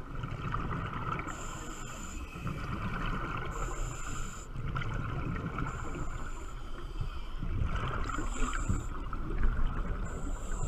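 Muffled underwater noise picked up through a diving camera's housing as it moves along the lake bottom: a steady low rumble and a constant mid-pitched hum, with a faint high hiss that returns about every two seconds.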